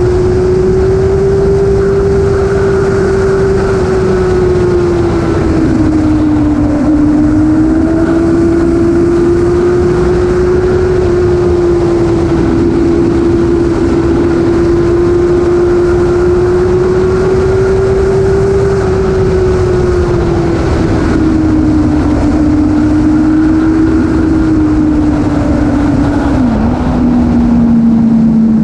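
Vehicle engine running steadily at road speed, its drone drifting slowly up and down in pitch and stepping down sharply near the end, over a constant low rush of wind and road noise.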